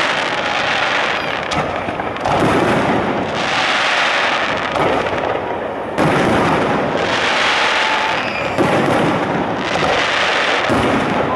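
Aerial firework shells bursting in a dense, unbroken barrage, with a crackling hiss between the bangs. The sharpest bangs come about two, six, eight and a half and ten and a half seconds in.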